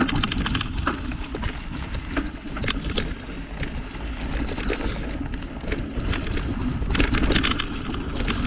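Surly Krampus 29+ mountain bike rolling over rough, bumpy dirt singletrack on hard-pumped tyres: tyre rumble with the chain and frame rattling at each bump, busiest near the end, under steady wind noise on the microphone.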